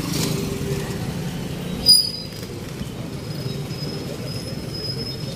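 Steady low rumble of passing road traffic, with a sharp knock about two seconds in and a thin high-pitched squeal after it.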